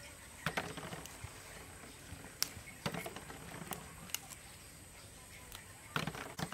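Lychees being pulled off their branches by hand: small stems and dry twigs snap and crackle, with leaves rustling, in a few separate bursts, about half a second in, around three seconds, and near the end.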